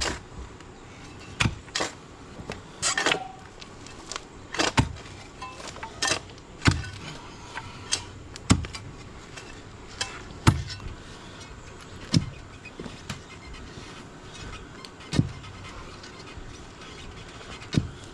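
Pointed pick striking hard, rocky ground, about a dozen sharp blows with a dull thud each, one every second or two.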